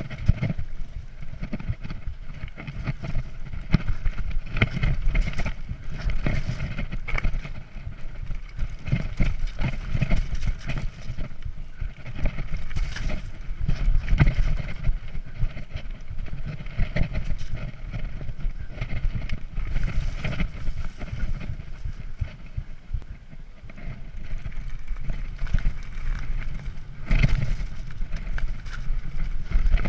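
Mountain bike riding fast down a rocky dirt singletrack: tyres rolling and crunching over stones and roots, with the bike clattering and rattling over the bumps throughout, over a steady rumble of wind on the microphone.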